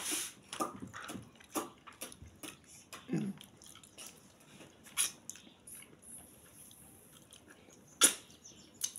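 Wet chewing and lip-smacking of a person eating fish stew with his fingers, heard as short scattered clicks, with a sharper smack about eight seconds in.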